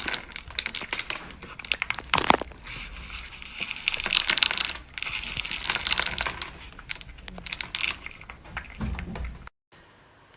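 Crinkling and rustling with many small crackles and clicks, like thin plastic or paper being crumpled and handled. It cuts off suddenly near the end.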